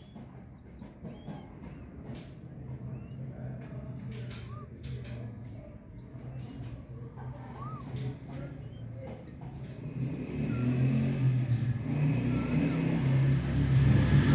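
Small birds chirping in short, repeated high notes, with a low engine rumble that grows louder in the last few seconds as a vehicle draws near.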